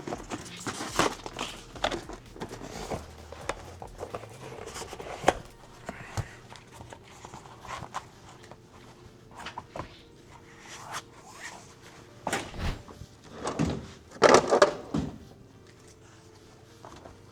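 Hands-on workshop handling noise: scattered knocks, clicks and rubbing, with a louder stretch of rubbing and knocks near the end, over faint background music.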